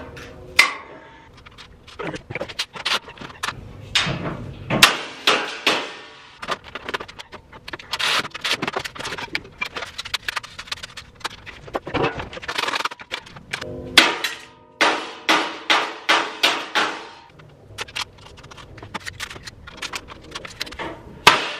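Clanking and knocking of sheet-steel tool cart parts and hardware being handled and fitted together, many sharp metallic knocks in quick runs, some briefly ringing.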